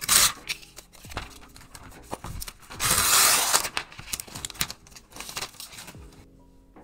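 Protective wrap being peeled and pulled off a new iPad, a crinkling, tearing rustle with two loud rips, one right at the start and a longer one about three seconds in, among small handling clicks.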